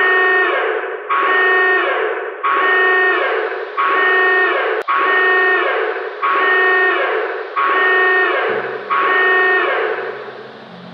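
Emergency alert alarm tone: a harsh electronic tone pulsing eight times, about one pulse every 1.3 seconds. A low hum comes in near the end as the pulses stop.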